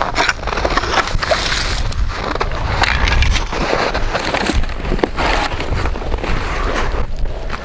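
Steady rushing noise with a heavy low rumble, like wind buffeting the microphone, mixed with scraping and knocks as an ice auger and fishing gear are handled on the snow.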